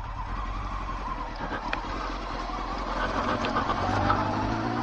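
Honda Fireblade motorcycle engine running at low revs as the bike rolls along, its note rising a little and getting louder about four seconds in as it pulls away.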